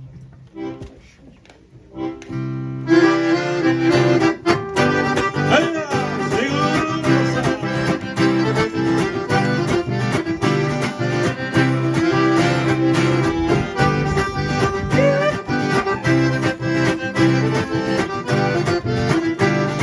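Instrumental introduction of a sertanejo song: a few sparse guitar notes, then about three seconds in a piano accordion and guitar come in together and play the melody over a steady rhythm.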